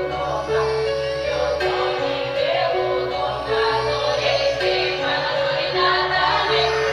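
Background music: a slow melody of held notes over a steady low bass, with an electronic, sung-sounding voice.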